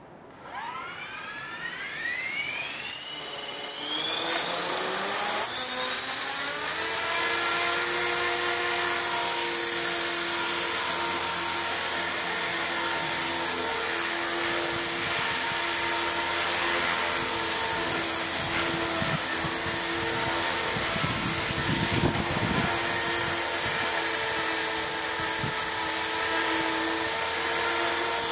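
Align T-Rex 450 electric RC helicopter spooling up, its motor and gear whine rising steeply in pitch over the first few seconds. It then settles into a steady high-pitched whine as it lifts off and hovers.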